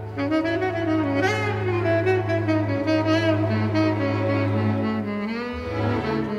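Tenor saxophone playing a melodic line with vibrato over sustained string chords from a chamber orchestra; the low held string note shifts about five seconds in.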